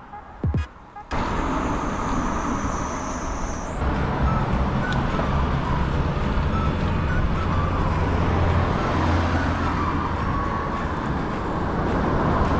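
Wind rushing over the microphone and road and traffic noise while riding a road bike, starting abruptly about a second in and running steadily.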